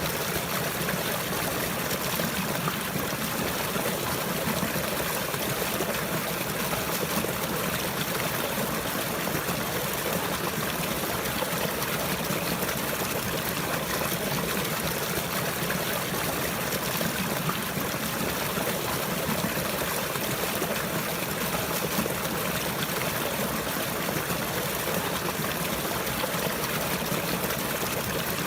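Running water trickling steadily, an even rush with no breaks or changes.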